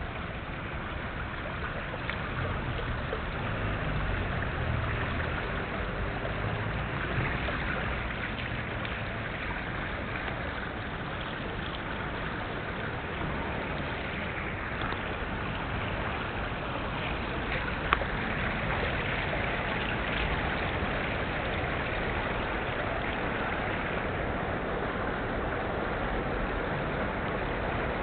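Water running down a sloping, ribbed stone water-wall fountain: a steady rushing hiss.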